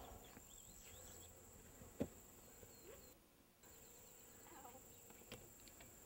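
Near silence: a faint steady high-pitched insect trill, with a single click about two seconds in.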